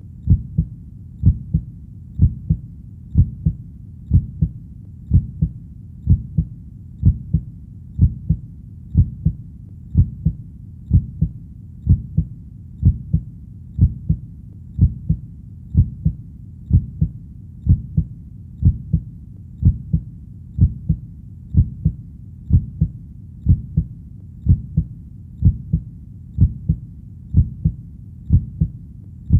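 A heartbeat, slow and steady at about one beat a second. Each beat is a deep lub-dub double thump over a steady low rumble.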